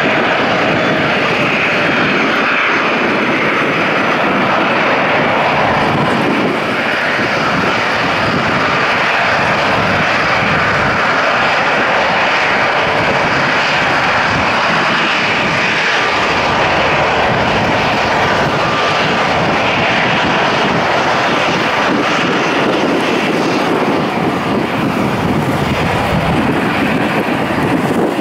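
A Boeing 737-800's CFM56-7B turbofan engines running at low taxi thrust: a steady, loud jet rush with a faint whine.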